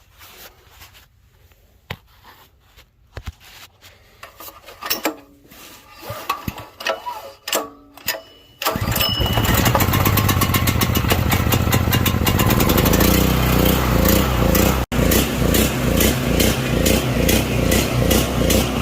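A Powermate 3000 portable generator's small petrol engine pull-started with the choke on. A few clicks and knocks come first, then it catches on the first pull about nine seconds in and runs steadily with a fast, even beat. This is its first start in a long while, just after a leaking fuel shut-off valve gasket was replaced.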